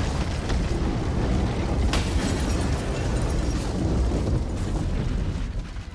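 Explosion sound effect: a continuous rumbling blast with one sharp crack about two seconds in, dying away near the end.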